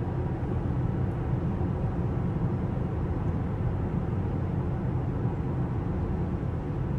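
Steady road and engine rumble heard inside a car's cabin while driving, with the tyres running at about half pressure.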